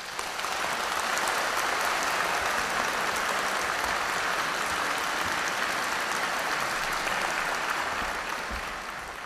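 Audience applauding: dense clapping that starts suddenly, holds steady, then begins to die away near the end.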